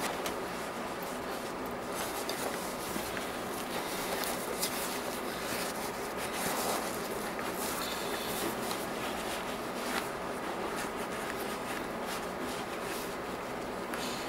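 Rustling and rubbing of a figure skate boot being turned over in the hands, with a few light knocks, over a steady background hiss.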